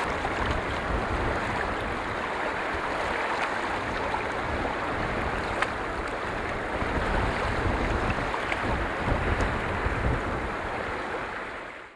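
Steady outdoor rushing noise with a fluctuating low rumble, without voices or music, fading out just before the end.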